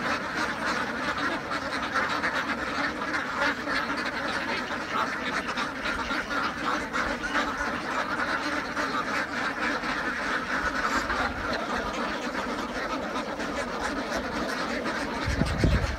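A large flock of domestic ducks quacking continuously, many calls overlapping into a steady chatter. A brief low thump comes near the end.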